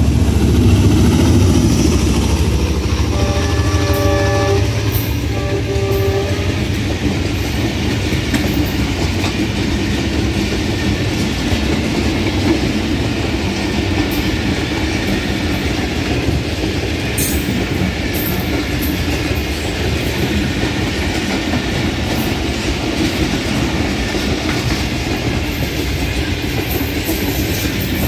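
Passenger train running through a station at speed: a locomotive horn sounds twice, a longer note about three seconds in and a shorter one just after. The heavy locomotive rumble of the first few seconds gives way to the steady rumble and clickety-clack of coaches rolling past on the track.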